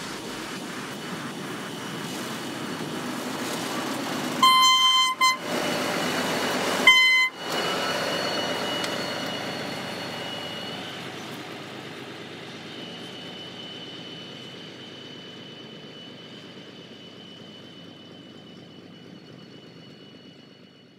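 Freight train of flat wagons rolling past, with two blasts of a BDZ Cargo diesel locomotive's horn, the first about a second long and the second shorter. The rolling noise then slowly fades away, with a thin high whine lingering.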